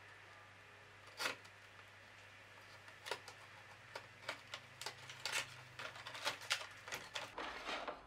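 A knife blade scraping and clicking as it slits open a cardboard box: one sharp click about a second in, then a scattered run of short scratches and clicks that grows busier, ending in a denser rustle.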